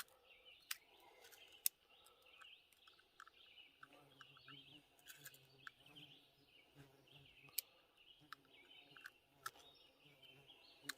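Faint birdsong with a few sharp, separate small metallic clicks: percussion caps being pressed from a capper onto the nipples of a cap-and-ball revolver's cylinder.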